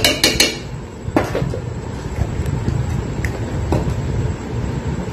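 Metal spoon clinking and scraping against a stainless steel mixer jar while yogurt is scooped in: a quick run of about four clinks at the start, another about a second in, and a fainter one later.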